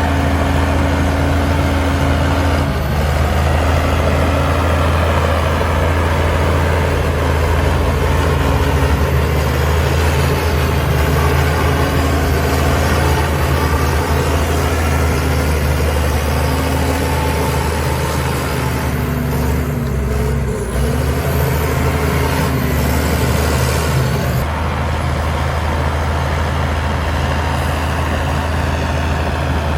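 Heavy diesel engine of earthmoving machinery running steadily under load, with a short dip and a wobble in pitch about two-thirds of the way through.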